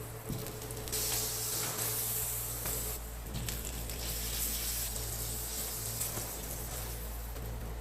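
Food sizzling on a hot griddle, a steady hiss with a few small clicks, over a constant low hum.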